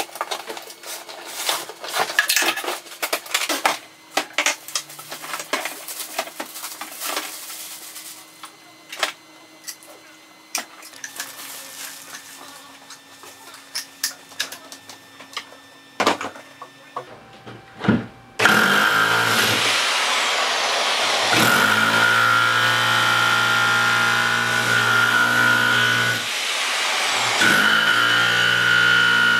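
Clicks and knocks of a plastic tool case being opened and a chisel bit being fitted into a hammer drill. About 18 seconds in, a Powerplus 1600 W electric hammer drill starts chiselling into a concrete block, a loud continuous motor whine with hammering. It stops briefly twice and starts up again.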